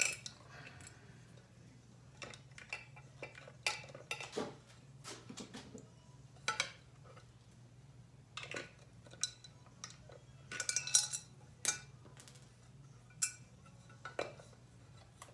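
Scattered metallic clinks and clatters of hand tools and engine parts being handled, with a louder cluster of rattling about eleven seconds in, over a steady low hum.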